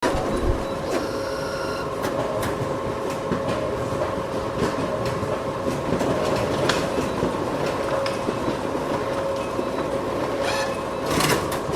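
Photocopier running: a steady machine hum with clicks and clacks every half second to a second, and a louder clatter shortly before the end.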